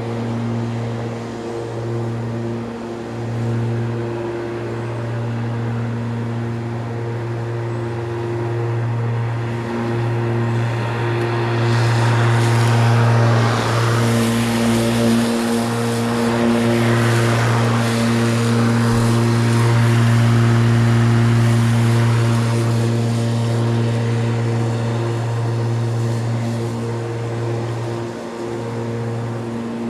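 Spear & Jackson S4037CR 40V cordless rotary lawnmower running while cutting grass: a steady electric motor and blade hum. Near the middle it passes close by, louder and with a rushing noise of the blade through the grass, then fades as it moves away.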